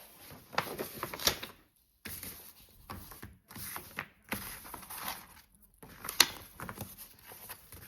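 Paper and cardboard being handled: rustling with a string of sharp clicks and taps as a thick poster and box-set contents are moved about.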